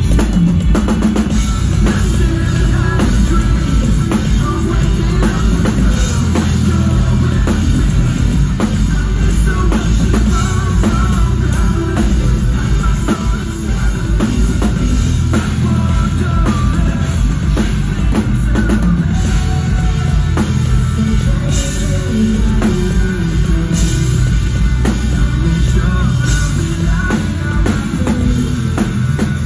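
Rock band playing live: a drum kit, electric guitars and a bass guitar, loud and dense with a heavy low end.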